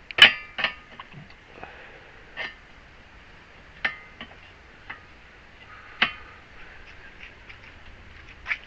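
Scattered sharp knocks and clanks of metal parts being handled and set down, the loudest about a quarter second in, a few with a brief metallic ring.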